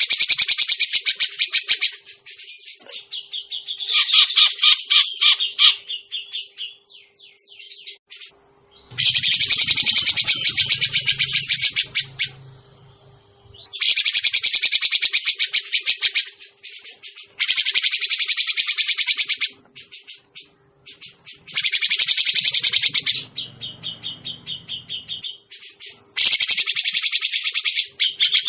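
Recorded calls of a grey-cheeked bulbul (cucak jenggot), used as a bird-lure track: loud bursts of rapid, high chattering notes, each lasting a few seconds, repeating every few seconds with quieter chatter between them.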